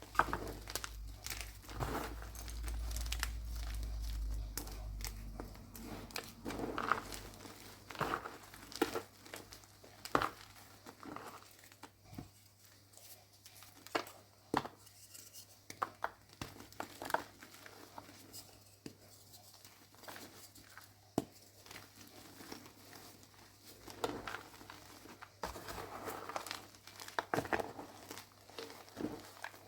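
Blocks of dried gym chalk being crushed and crumbled by hand, giving irregular crisp crunches and crackles.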